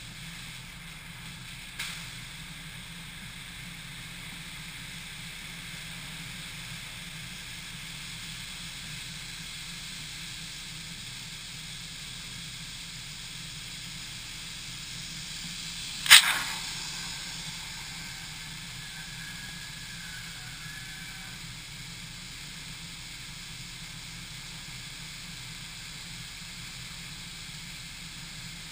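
Steady hiss of high-pressure water spray in a touchless automatic car wash, heard from a camera on the car's roof. A small click about two seconds in, and a sharp bang about halfway through, the loudest sound.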